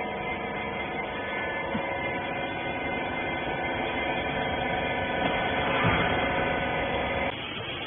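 Hydraulic pump motor of a rag baler running with a steady hum, cutting off suddenly about seven seconds in.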